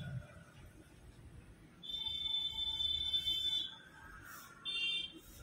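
A high-pitched beep held for about two seconds, then a second, short beep about a second later.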